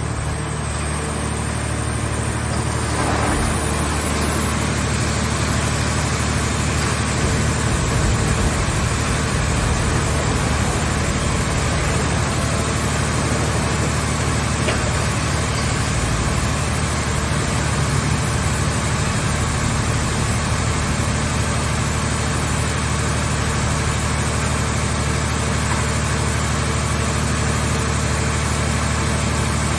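The engine of a portable scrap car baler's hydraulic power unit running at a steady speed, with an even low hum that does not change.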